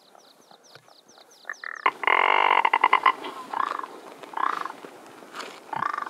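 Rock ptarmigan calling: a loud, dry, croaking rattle about two seconds in, followed by three shorter croaks. Before it, a fast run of short high chirps.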